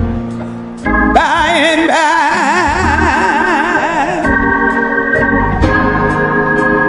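Organ holding chords under a woman's singing voice. About a second in she comes in with one long sung note with wide vibrato, which ends about four seconds in, and the organ carries on alone with sustained chords.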